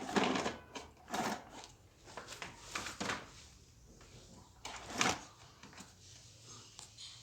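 Plastic parts of a vacuum cleaner's switch assembly being handled: a run of clicks, knocks and rattles, loudest at the start and about five seconds in.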